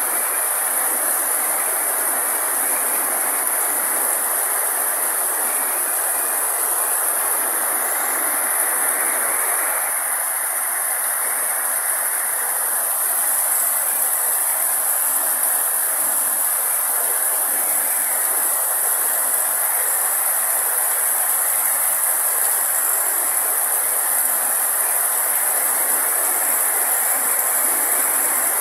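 Steady rain falling on leaves and grass, an even hiss with no breaks.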